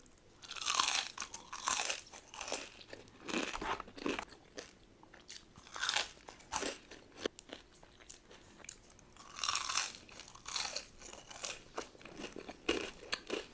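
Close-up crunching and chewing of re-toasted, very crunchy french fries, in irregular bites with short pauses between them.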